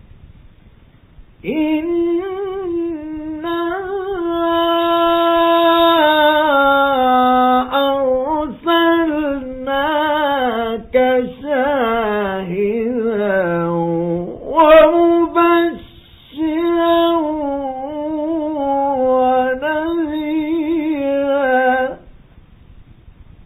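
A high male voice in melodic Quran recitation (mujawwad style), holding long ornamented notes that wind up and down and sink low about two-thirds of the way through. It comes in about a second and a half in and breaks off near the end. The sound is dull and narrow, as on an old radio recording.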